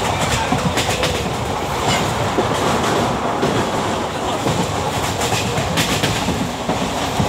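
Passenger train carriage running along the track, heard from a barred coach window: a steady rumble and rush of air, with the clickety-clack of wheels over rail joints coming as irregular sharp clicks.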